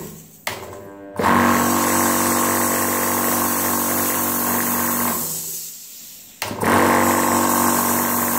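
Portable high-pressure PCP air compressor's pump motor starting up and running with a steady humming drone. About five seconds in it winds down, and about a second later it starts again with a click and runs on, the slight jerky start typical of this compressor on a direct AC circuit.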